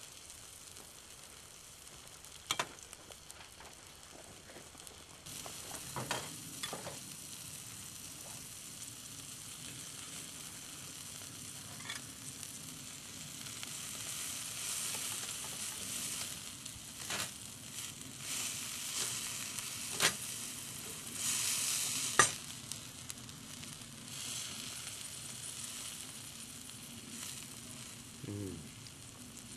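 Thick rib steak sizzling on the grill plate of a folding Firebox camp stove over hot coals: a steady hiss broken by scattered sharp pops and ticks. The sizzle swells a little past the middle, where the loudest pops fall.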